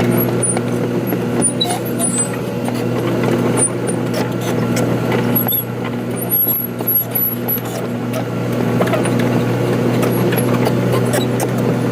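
Excavator diesel engine running steadily under work, with a low even drone and a regular pulsing throb.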